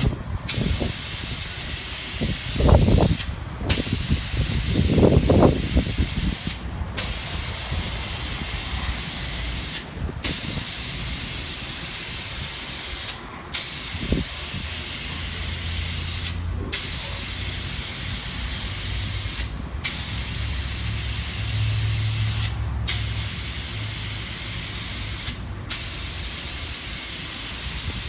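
Gravity-feed spray gun on an air hose, hissing steadily as it sprays a rear projection screen coating onto window glass. The hiss is broken by short gaps about every three seconds. There are a couple of low rumbles a few seconds in.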